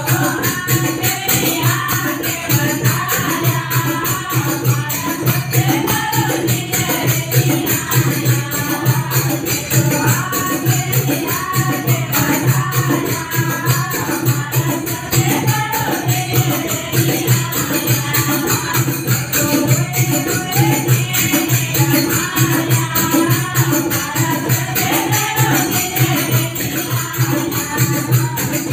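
Women singing a Marwari guru bhajan to a steady dholak drum beat, with jingling percussion keeping time.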